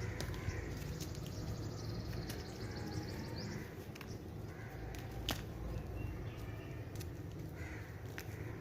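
Pressed baking soda being crumbled, giving scattered small crackles and crunches, with a few short harsh calls sounding in the background over a low hum.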